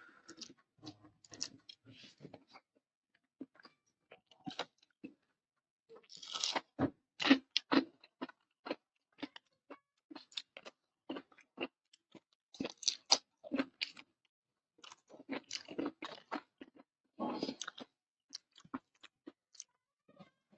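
A person chewing and crunching crisp food up close: irregular runs of sharp crunches between pauses, with the loudest bites about a third of the way in and again past the middle.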